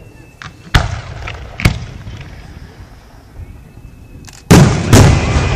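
Aerial fireworks shells bursting: two sharp bangs about a second apart, then a louder double bang near the end that rumbles on.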